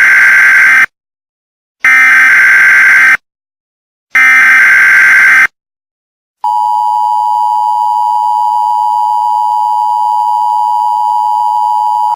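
Emergency Alert System opening. Three bursts of warbling SAME header data tones, about a second and a half each with short silences between (the first already under way), encode the alert's header. Then, about six and a half seconds in, the steady two-tone EAS attention signal starts, signalling that an emergency message follows.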